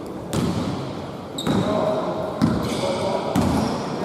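A basketball being bounced on a court about once a second, four bounces in all, with a short squeak about a second and a half in and voices in the background.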